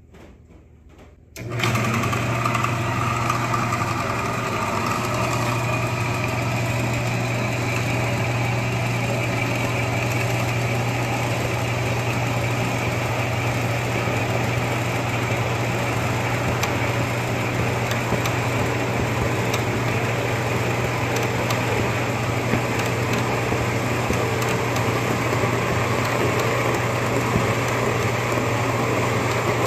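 Horizontal metal-cutting band saw switching on about a second and a half in, then running steadily with a low hum while its blade slowly feeds down through a clamped paper towel roll.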